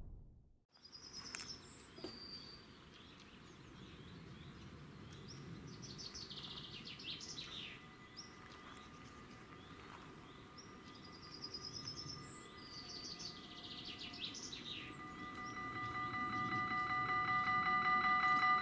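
Birds singing, with intermittent chirping phrases over a quiet outdoor background. About fifteen seconds in, the Dutch level crossing's warning bells start up with a fast, steady ringing that grows louder.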